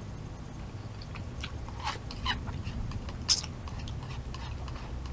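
Close-up chewing of udon noodles: a run of short, wet mouth clicks and smacks, the loudest about three seconds in.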